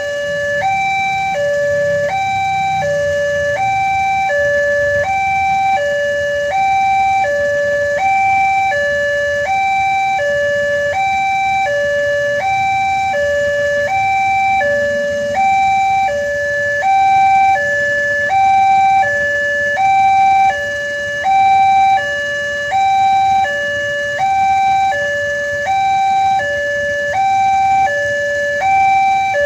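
Railway level-crossing warning alarm sounding, an electronic two-tone signal that alternates steadily between a high and a low tone, each held a little over half a second.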